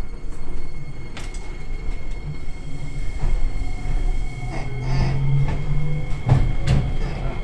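Iyo Railway train running along the track, its wheels knocking over rail joints several times against a steady low hum and a thin high motor whine.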